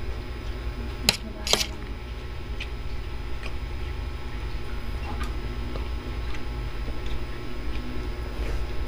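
Metal fork and spoon clinking and scraping on a plate while eating, with two sharp clinks about a second in and lighter taps scattered through, over a steady low hum.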